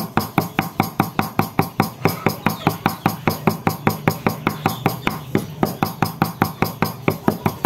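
Rapid, even chopping with a kitchen knife on a cutting board, about five strokes a second without a break.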